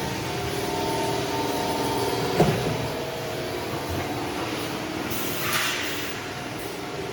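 L-profile roll forming machine running with a steady mechanical whine. A single sharp knock comes about two and a half seconds in, and a short hiss comes near the end.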